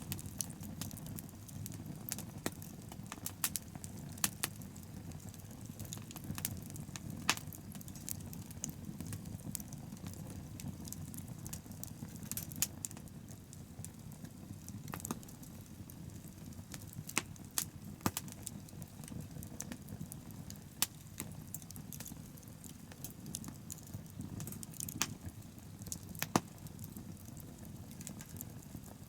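Wood bonfire burning: irregular sharp crackles and pops of burning wood, a few louder snaps among them, over a steady low rumble.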